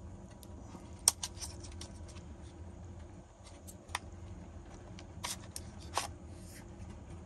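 Plastic clicks and light rattles of DJI Mavic Mini drone batteries being handled and slid out of their Fly More charging hub, with a sharp click about a second in and a few more later, over a faint low hum.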